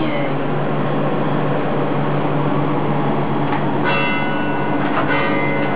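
Steady low mechanical hum, with two short high-pitched tones about four and five seconds in.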